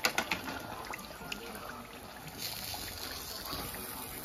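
Hot oil bubbling and sizzling around breaded tilapia fillets deep-frying in a metal saucepan. There are a few sharp clicks of a metal utensil against the pot at the very start, and the sizzle gets louder for about a second around two and a half seconds in.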